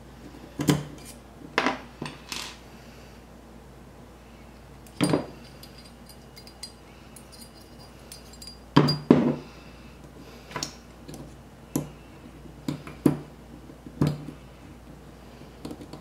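Small steel parts of a Beretta Pico pistol slide clicking and clinking as they are worked together by hand while the firing pin, firing pin spring and ejector are fitted. About a dozen scattered sharp clicks and knocks, the loudest a close pair around nine seconds in.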